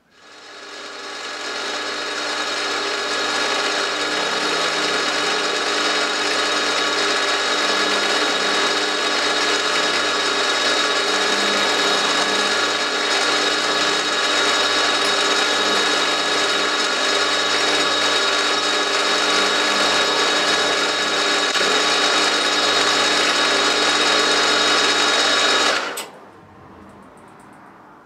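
Milling machine spindle motor starting up, then running steadily, a hum with several whining tones, while an end mill cuts into an aluminium ball held in a vise. It is switched off near the end and coasts down quietly.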